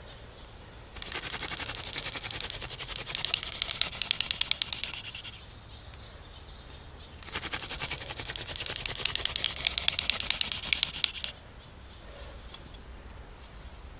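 Wooden hand-drill spindle spun between the palms on a fireboard to make a friction fire: rapid clicking chatter of wood grinding on wood, in two bouts of about four seconds each with a short pause between.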